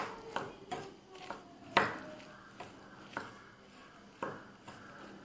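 Metal spoon stirring crushed biscuit crumbs and cream cheese in a glass bowl, clinking and scraping against the glass in irregular strokes about half a second apart. The loudest clink comes just under two seconds in.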